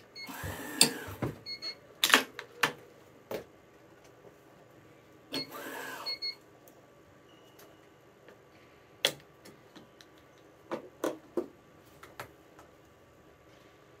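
Yonex ES5 Protech electronic stringing machine beeping as its motorised tension head pulls the string to tension, twice, each pull lasting about a second, with sharp clicks of the clamps and string being handled in between.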